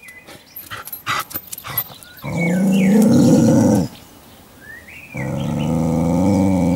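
Dog growling: two long, low growls, the first about two seconds in and the second from about five seconds in, after a few short sharp noises.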